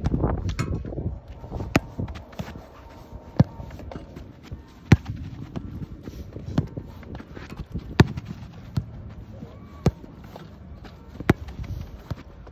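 Football being struck and controlled on artificial turf: sharp thuds of boot on ball about every second and a half, with shuffling footsteps on the turf in between. A louder rush of noise fills the first second.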